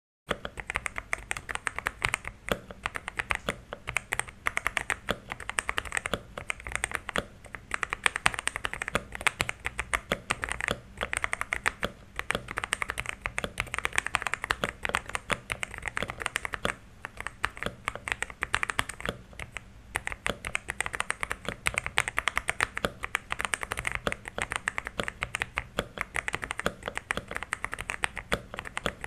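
Xinmeng X87 gasket-mounted mechanical keyboard being typed on continuously, a dense run of clacking keystrokes. It starts just after a brief silent gap at the very beginning.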